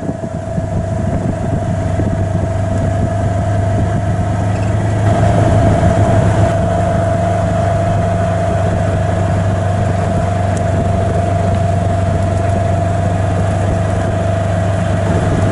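A side-by-side utility vehicle's engine running steadily, close by, with a steady whine over the engine hum that grows a little louder about five seconds in.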